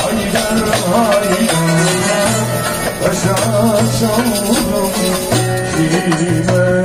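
Live Turkish folk music: a long-necked saz playing with a frame drum keeping a steady beat, and a man singing a wavering, ornamented melody into a microphone.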